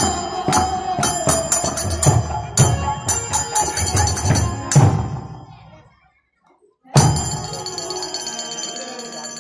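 Kirtan music: brass hand cymbals (kartal) clashing in a fast rhythm over drum beats from a khol. The music fades out about six seconds in, goes silent for about a second, then comes back with a cymbal strike and a held ringing tone.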